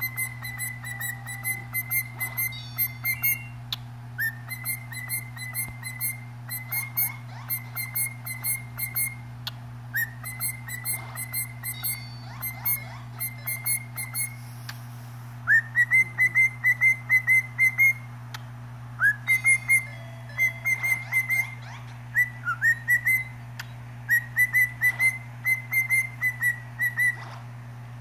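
Cockatiel whistling: phrases of rapid, evenly repeated short chirps at one pitch, about four a second, several phrases opening with an upward-sliding note, broken by short pauses.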